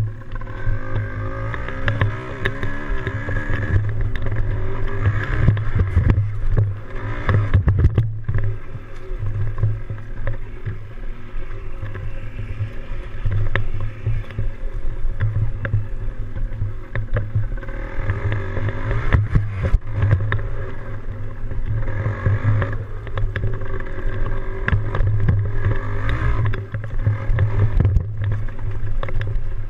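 Yamaha DT175 two-stroke dirt bike engine running under way, its revs rising and falling repeatedly as the rider opens and closes the throttle, over a steady low rumble.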